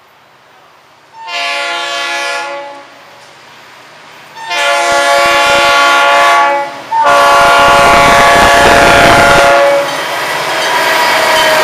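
Florida East Coast Railway diesel freight locomotive's air horn sounding three blasts of a multi-note chord, the last two long, as the warning for a grade crossing. Then the locomotives and freight cars run past, with a loud steady rolling noise.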